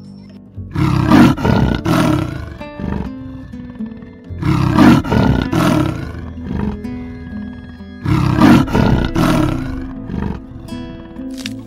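Big cat roaring in three bouts a few seconds apart, over background music.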